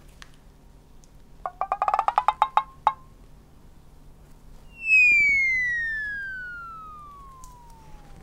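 Cartoon sound effects: a quick run of rapid pitched beeps rising slightly, then about two seconds later a long whistle that slides steadily down in pitch and fades out over about three seconds.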